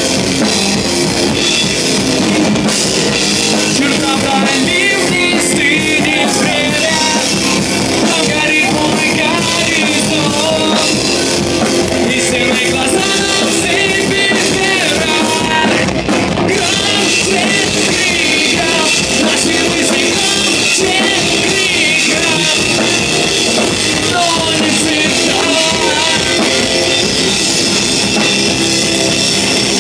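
Live post-hardcore/metal band playing loudly: electric guitars and a pounding drum kit with a singer's vocals over them, heard through a small, crowded bar's room sound.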